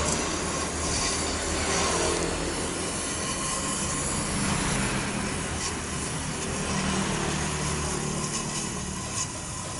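Hand-held gas welding torch hissing steadily as filler rod is melted into a patch on a motorcycle muffler, with a steady low hum underneath.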